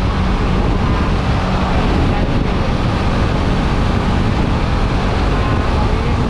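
Motorcycle cruising at a steady speed: wind rushing over the microphone over the engine's constant drone.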